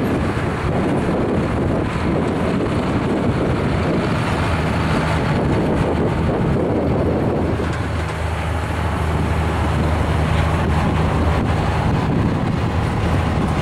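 Rail train's flatcars and rail-handling cars rolling past, a steady rumble of steel wheels on the track with a low drone underneath.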